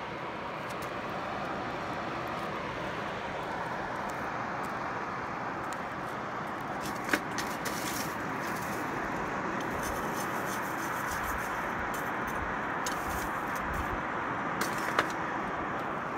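Small Dayton electric blower running steadily, forcing air through the coal forge's fire pot to get the coal fire going. A few sharp clicks stand out, one about halfway through and two near the end.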